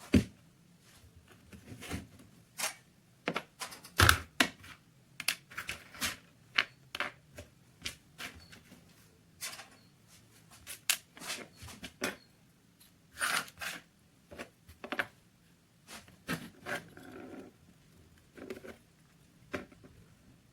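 Small metal pistol parts handled and worked by hand: irregular sharp clicks and knocks, one or two a second, the loudest about four seconds in, with a few short scraping rasps.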